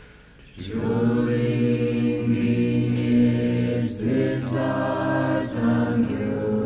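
Tibetan Buddhist chanting in low voices: held notes on a steady drone that start about half a second in, with brief breaks about four and five and a half seconds in.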